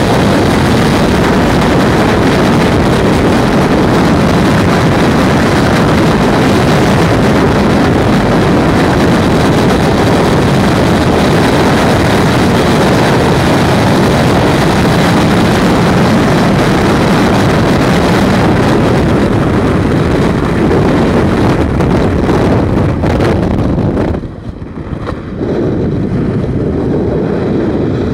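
Freefall wind rushing over a skydiving camera flyer's helmet camera, loud and steady. About four seconds before the end it drops off sharply and then comes back briefly, as the fall slows at the end of the skydive.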